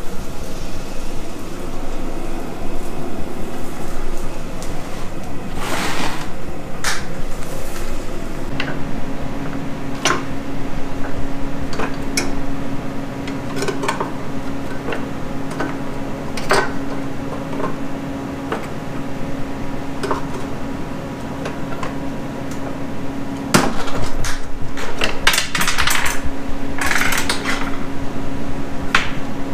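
Hand tools clinking and tapping against the metal parts of a snow blower, scattered single knocks with a busier run of clatter about 24 to 27 seconds in, over a steady machine hum.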